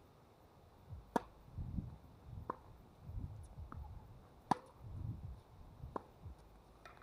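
Tennis ball struck back and forth in a rally: sharp pops of racket strings on the ball, the loudest about a second in and again near the middle, with fainter hits and bounces between them. Low rumbling runs under the hits.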